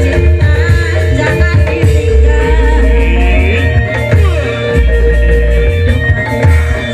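Loud Indramayu reog music: a wavering, gliding singing voice over pulsing heavy drums and a steady held note.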